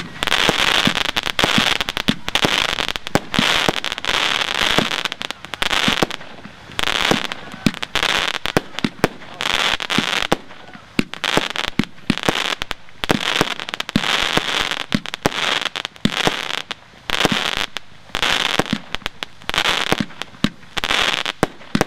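Panda 'Bagua' firework cake firing: a quick run of sharp shots, with bursts of crackling stars that each last about a second and come every second or two.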